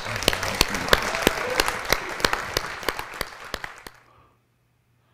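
Audience applause at the end of a live song: dense clapping that cuts off abruptly about four seconds in.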